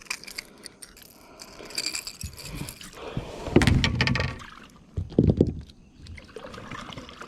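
Metal clinking and jingling with scrapes, like treble hooks and a topwater lure rattling as a caught bass is handled and unhooked. A couple of louder bumps come a little past the middle.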